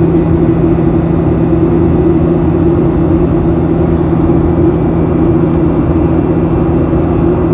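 Boeing 737-800's CFM56 engines heard from inside the passenger cabin: a steady drone with a constant low hum and rushing air noise during the climb.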